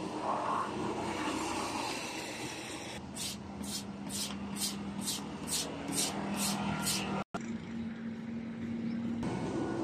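Hand rasp scraping a two-wheeler's rubber inner tube around the puncture, roughening it for the patch, in about ten even strokes, two a second, starting about three seconds in. A steady low hum runs underneath.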